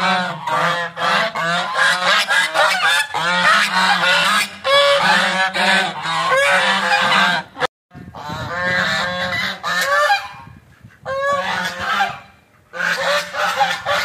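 A flock of domestic geese honking loudly, many calls overlapping in a dense, repeated chorus, with a brief break about eight seconds in.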